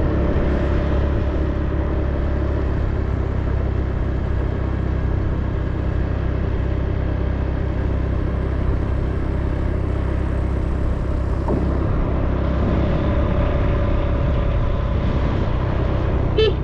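Steady rumble of a road vehicle's engine and wind on the microphone while travelling at an even cruising speed. A short pitched sound cuts in near the end.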